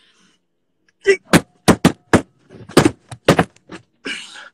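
A quick run of about nine loud thumps and knocks inside a car, as something is struck hard close to the phone, starting about a second in. A harsh breathy noise follows near the end.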